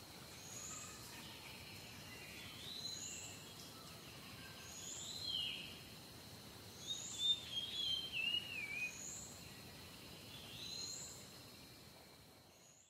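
Songbirds calling: a short high call repeating about every second and a half, with a louder, longer warbling phrase that falls in pitch in the middle, over a steady background hiss. The sound fades out near the end.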